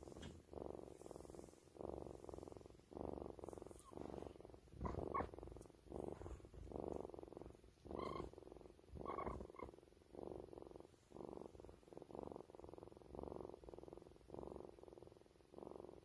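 A cat purring close by, in an even rhythm of pulses about one and a half a second. A few pulses about a third of the way in and around the middle are louder.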